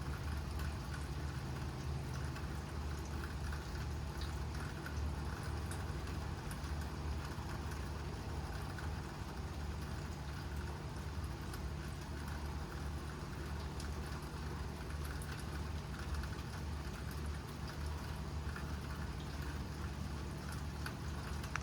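Steady rain hiss over a low, even mechanical hum, with no thunder.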